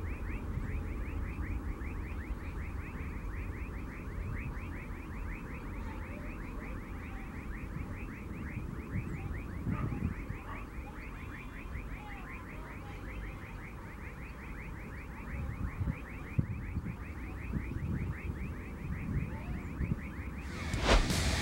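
Low rumble of a Boeing 767-300F freighter's twin jet engines climbing away after takeoff, with a high chirp repeating about five times a second throughout. Music cuts in loudly near the end.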